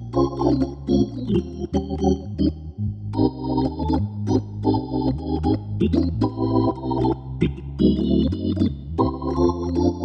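Nord C2 organ set to a Hammond B3 tonewheel sound, playing swing jazz. A bass line steps to a new note about twice a second under right-hand chords and melody lines, with short clicks at the start of many notes.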